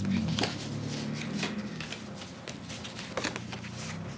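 Handling of a paper greeting card: scattered rustles, light taps and clicks, over a faint steady low hum.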